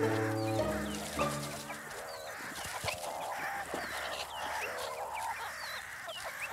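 Meerkat pups squeaking and chirping in short, rapid, repeated calls, some warbling. Background music fades out over the first second or so.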